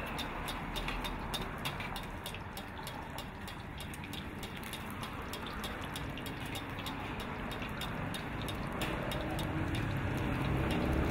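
An egg frying in deep hot oil in a wok, sizzling steadily with many small crackles and pops as it crisps. A low rumble builds up near the end.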